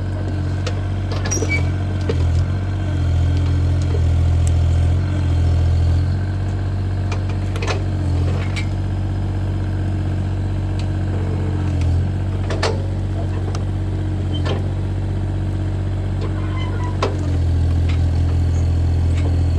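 Bobcat E35 mini excavator's diesel engine running steadily as the hydraulics work, rising a little in level twice, with a few short sharp knocks.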